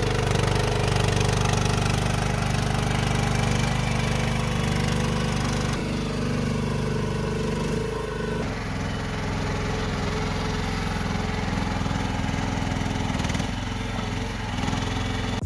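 AGT YSRT14 mini skid steer's engine running steadily, its note shifting a few times as the machine works.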